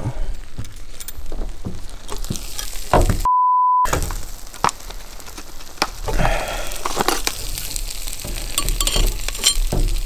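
Hot cast iron jaffle iron sizzling and crackling, with sharp clicks and scrapes of metal as it is handled. A short, steady bleep tone cuts in about a third of the way through.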